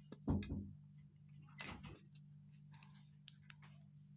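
Small plastic toy bricks and wheels clicking and tapping against each other and the tabletop as a toy car is put together by hand. There are a few sharp clicks, loudest near the start, then scattered light ticks over a steady low hum.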